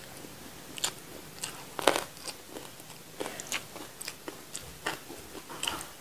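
A person chewing and biting food close to the microphone, with irregular crisp crunches and wet mouth clicks; the loudest crunch comes about two seconds in.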